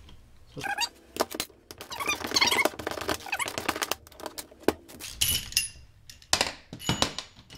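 Metal clicks, knocks and squeaks from a two-legged gear puller being worked on a differential pinion shaft, its forcing screw turned with a wrench to pull the pinion bearing off. Two short ringing metallic clinks come near the end.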